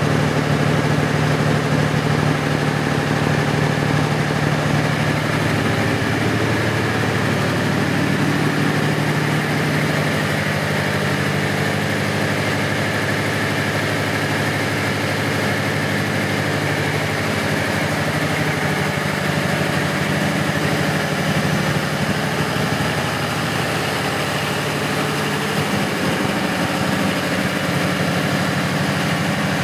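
Large Caterpillar V-block diesel engine of a standby generator set running steadily at constant speed, its alternator up to voltage at about 410 volts per phase. The engine note is a loud, even drone that holds the same pitch throughout.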